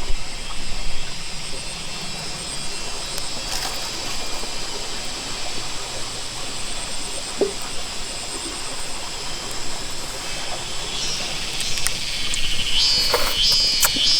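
High-pitched insect chorus buzzing steadily over a faint outdoor background. A louder, pulsing insect buzz swells in about three quarters of the way through.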